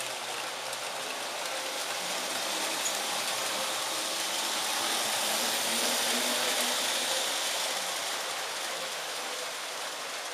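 Lionel model trains running on metal track: a steady rolling rush of wheels and motors, swelling about halfway through as a train passes close, then easing off.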